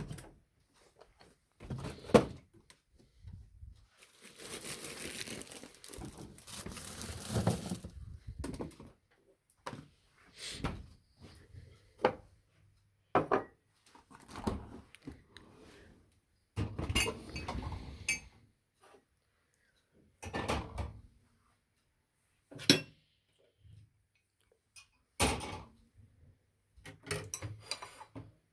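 Kitchenware being handled: dishes, pots and cutlery clinking and knocking in separate, irregular strokes. A few seconds in, a stretch of steady noise lasts about four seconds.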